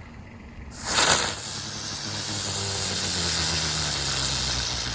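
A ground bloom flower firework catching with a sudden loud burst of hiss about a second in, then spinning on the ground with a steady hiss.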